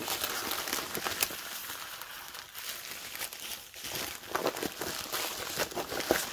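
USPS Priority Mail envelopes rustling and crackling as they are handled and lifted out of a cardboard box, with a continuous run of small crackles.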